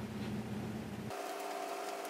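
Quiet room tone: a low, steady electrical hum with a few faint light ticks. About a second in, the low hum cuts out suddenly and a fainter, higher steady tone carries on.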